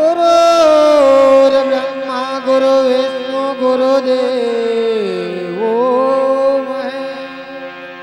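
Live Indian devotional music. A long melodic line enters suddenly, slides down and holds, then dips about five seconds in and glides back up, over a steady drone of held notes.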